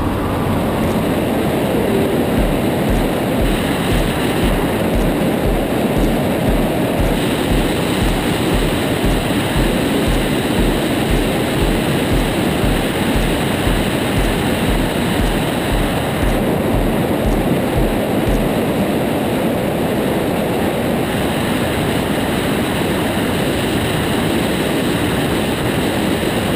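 Steady in-flight noise of an Aeroprakt A22 Foxbat light aircraft: engine and propeller drone under heavy wind rush on the microphone. A low regular pulse, about twice a second, runs through the first two-thirds and then fades.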